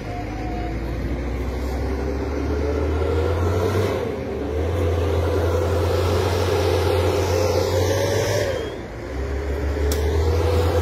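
Motor vehicle engine running under load, its pitch climbing slowly, dropping about eight and a half seconds in and then climbing again.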